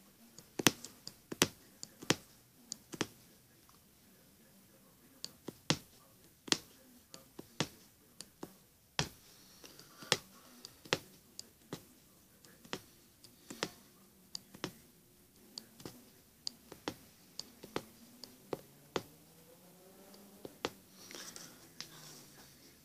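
Punch needle (aguja mágica) piercing fabric stretched taut in an embroidery hoop as it lays an outline of metallic thread: sharp, unevenly spaced clicks, roughly two a second, one for each stitch.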